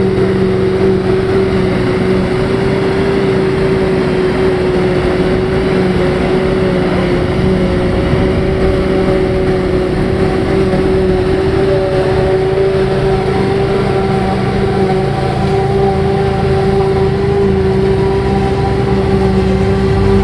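A Krone BigX forage harvester chopping grass while a Fendt Vario tractor and trailer run alongside, making a steady, loud machinery drone. A constant whine sits over the engines' low rumble, and a few higher tones join about halfway through.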